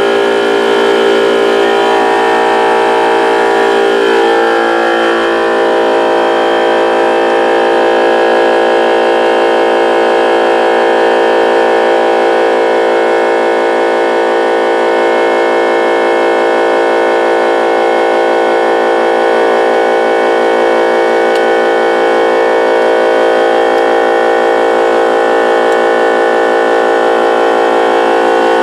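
A machine motor running at a steady pitch, with a loud, unchanging hum throughout.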